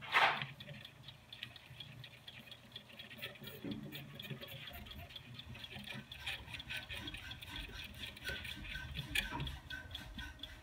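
Watchmaker's topping tool cutting the teeth of a small brass gear wheel, making a rapid, uneven run of fine ticks as the cutter passes tooth by tooth. A louder scrape comes just at the start.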